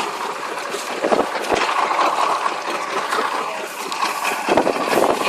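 A rice combine harvester runs steadily in a flooded, muddy field, with water and mud churning and gurgling around its tracks as it is worked free.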